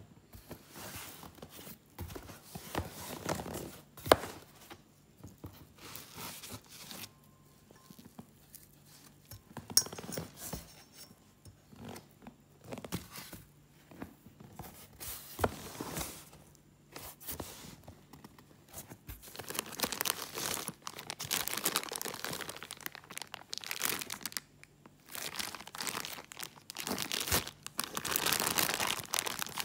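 Plastic parts bags crinkling and rustling, with cardboard and foam packing being handled, in irregular bursts that grow louder and denser in the second half. A few sharp knocks stand out, the loudest about four seconds in.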